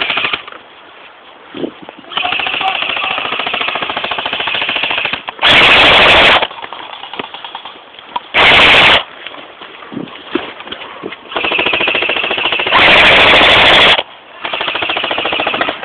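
Airsoft guns firing in long full-auto bursts, a fast mechanical rattle. Three of the bursts, about a third of the way in, past halfway and near the end, are much louder and closer than the rest.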